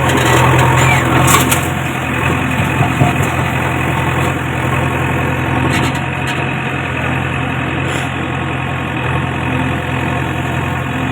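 Diesel engine of a backhoe loader or tractor running steadily, with a few faint knocks.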